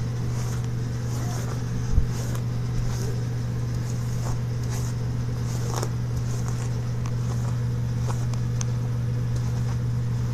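A steady low hum, with faint scratchy strokes of a hairbrush pulled through wet hair every second or so. A brief soft bump about two seconds in.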